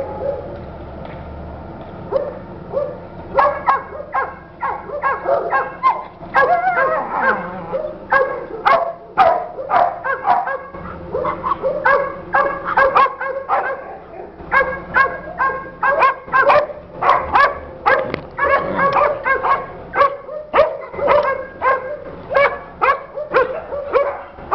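Dog barking and yapping in play, a rapid string of short, high barks that thickens a few seconds in and keeps on with only brief pauses.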